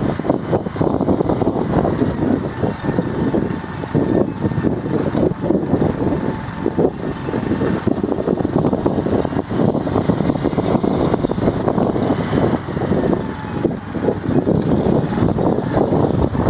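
Motorcycle riding along a road: the engine and tyres run under heavy, uneven wind buffeting on the microphone.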